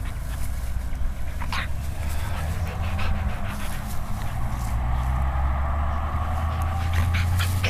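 A dog rolling on its back in grass, making soft, drawn-out vocal sounds that grow stronger in the second half, with a few short rustles and clicks, over a steady low rumble.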